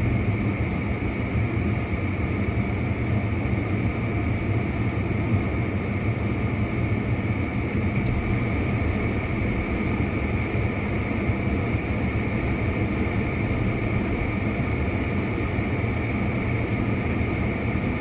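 Steady drone of a moving vehicle, unbroken for the whole stretch, with a faint constant hum running through it.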